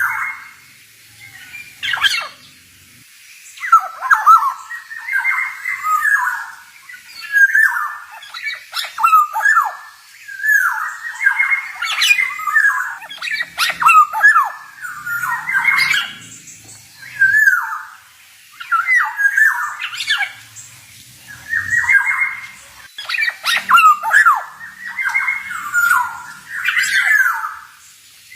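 Male black-naped oriole singing: short phrases of quick pitch slides, repeated every second or two with brief pauses between them.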